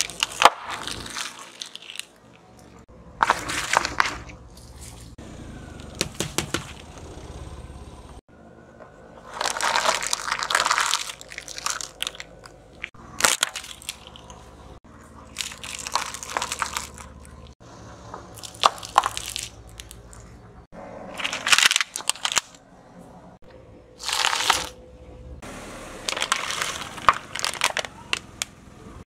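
A run of crush sounds as a car tyre rolls over one object after another: about ten separate bursts of crunching and crackling, each a second or two long, from a chip packet, brittle plastic pieces and a plastic bottle.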